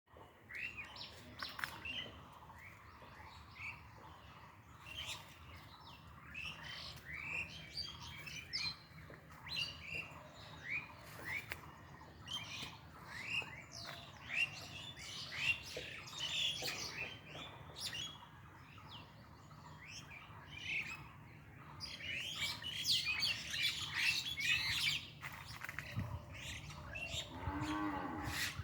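Small birds chirping, many short quick calls overlapping in a busy chorus that grows denser about three quarters of the way through. Near the end a longer, lower animal call sounds over the birds.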